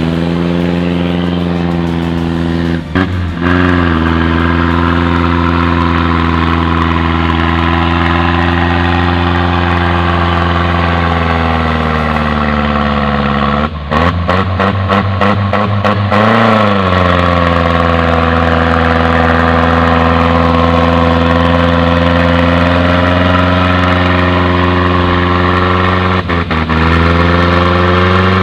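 Off-road 4x4's engine working hard under load as it crawls up a muddy bank, its pitch sagging slowly and then climbing again as the revs rise.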